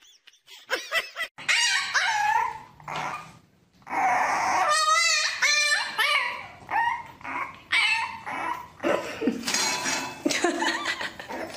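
Puppy yapping and whining in a string of short, high calls, a few of them wavering in pitch.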